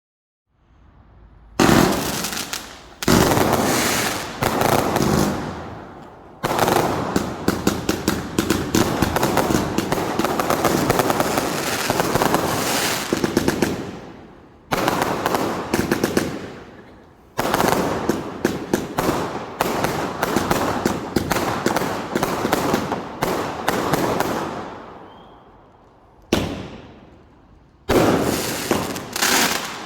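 Consumer F2 firework batteries firing: rapid volleys of shots and crackling, each run lasting a few seconds before dying away, then the next one starting.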